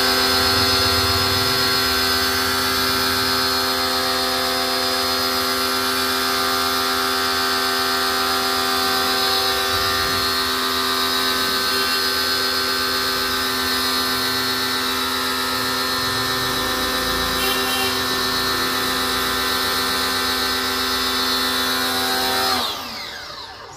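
Electric high-pressure washer running steadily: a motor-pump whine with a dense hiss from the water jet spraying the car's body. Near the end the motor cuts off and winds down, its whine falling in pitch.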